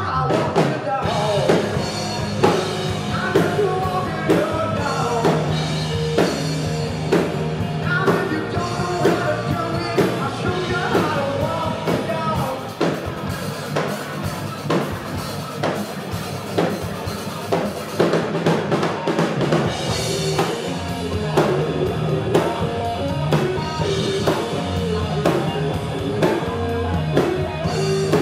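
Rock band playing live and amplified: drum kit keeping a steady beat under bass and electric guitar.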